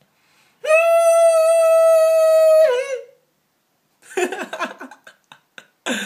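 A person humming one steady high note for about two seconds, ending in a short downward wobble. About a second later comes a choppy run of short whining vocal sounds, with one more just before the end.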